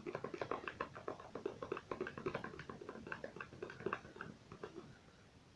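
Slime made of body wash and salt being stirred: quick, irregular wet squelching clicks, several a second, as the mixture thickens and pulls away from the sides. The clicks die away about four and a half seconds in.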